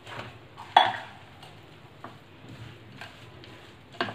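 Spoon stirring a dry puffed-rice bhel mix in a glass bowl, knocking against the glass a few times, loudest about a second in and again near the end.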